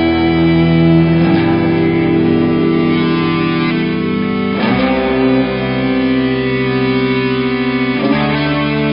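Background music: a guitar-led instrumental track, sustained chords changing about every three and a half seconds.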